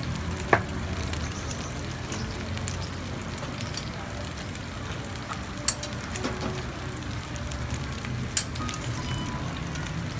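Takoyaki frying in oil in a takoyaki griddle, with a steady sizzle. Three sharp clicks stand out, about half a second in, near the middle and about two thirds of the way through.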